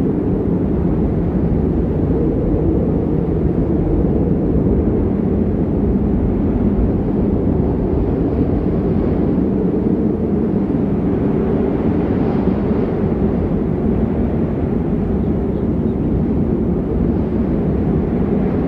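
Snow-scene ambience sound effect: a steady, low rumbling noise without breaks or distinct events.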